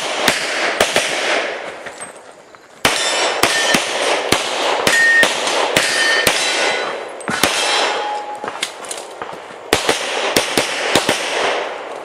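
Rapid pistol fire from a .40 S&W competition pistol, shots in quick strings with a short lull about two seconds in, each echoing off the range. Several shots are followed by a brief metallic ring: bullets striking steel targets.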